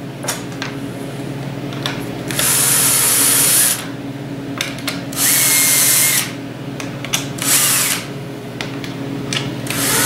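Power drill running in three short runs, the first two over a second each and the third shorter, drilling pilot holes with a self-centering bit for wood screws into plywood.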